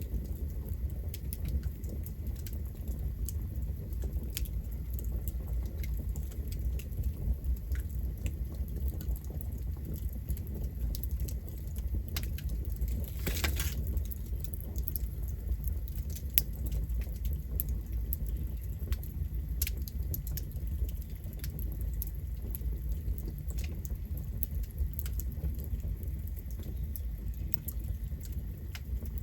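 Campfire burning: a low steady rumble of the flames with scattered sharp crackles of burning wood, and one brief louder crackle and hiss about thirteen seconds in.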